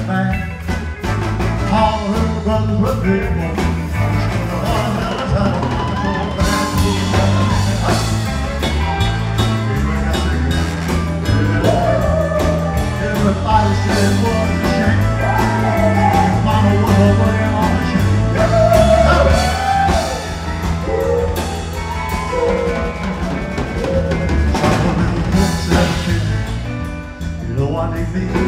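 Live rock-and-roll band playing a driving groove on drum kit, bass guitar and keyboards, with some wordless vocals over it.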